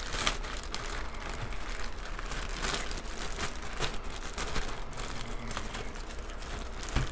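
Clear plastic bag holding model-kit sprues crinkling as it is handled, with irregular sharp crackles throughout.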